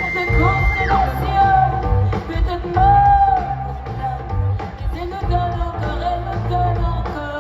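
Live band playing amplified music, with a singer's voice, heard from the audience. A high held note at the start ends about a second in.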